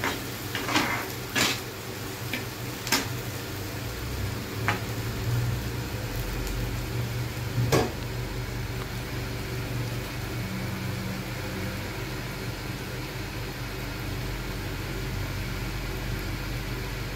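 Metal spatula scraping and tapping a frying pan while stirring scrambled egg bhurji: several sharp clicks in the first three seconds and one more near the middle. Under it the food sizzles faintly, and a steady low hum comes in about six seconds in.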